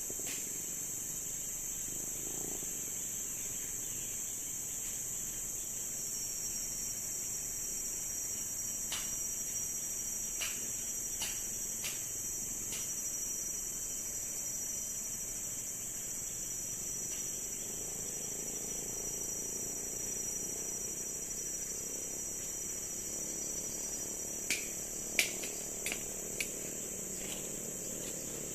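Steady, high-pitched chorus of forest insects, unbroken throughout. A few sharp clicks and knocks stand out, scattered in the first half and clustered near the end, where they are the loudest sounds.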